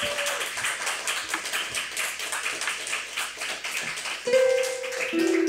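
A quick, even run of light taps, about five a second, carries on after a held note dies away at the start. About four seconds in, Celtic harp strings are plucked, a few low notes ringing on.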